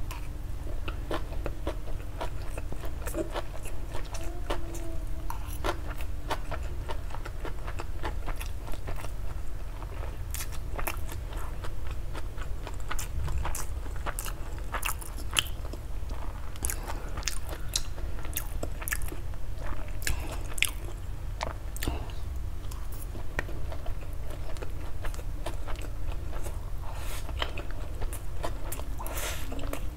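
Close-miked chewing of a mouthful of honey garlic chicken noodles, with many sharp wet mouth clicks and smacks.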